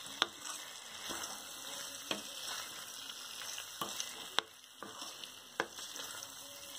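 Paneer, capsicum, onion and tomato in masala sizzling in a kadhai while a spatula stirs and turns them, with several sharp clicks of the spatula knocking against the pan.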